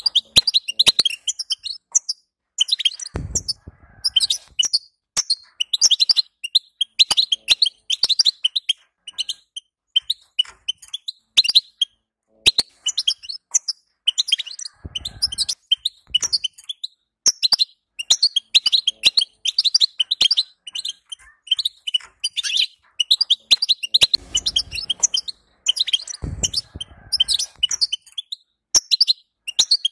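European goldfinch twittering: rapid high chirps in dense bursts with short pauses, the excited 'betbeta' chatter of goldfinches. A few brief low thuds come through at intervals.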